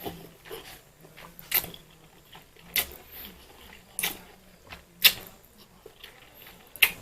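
Close-up mukbang eating sounds of fried instant noodles being chewed: sharp wet mouth smacks and clicks, roughly one every second or so, with quieter chewing between.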